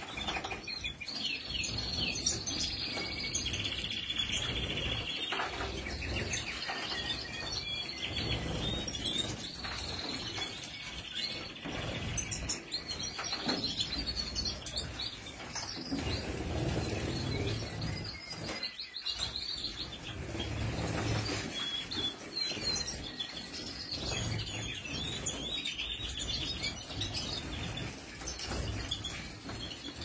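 European goldfinches twittering and chirping while they bathe in a shallow water dish, with repeated wing-fluttering and splashing in the water.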